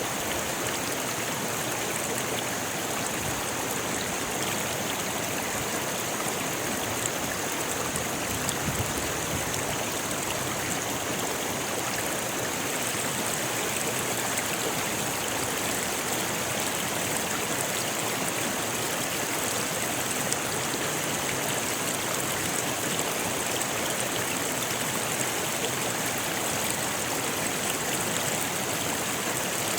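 Rocky river flowing steadily over stones, a constant even rush of water with no breaks.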